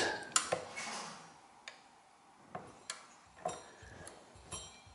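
Light, scattered metallic clicks from a Teletype Model 19 transmitter-distributor's mechanism being worked by hand at its clutch, coming at uneven intervals roughly half a second to a second apart.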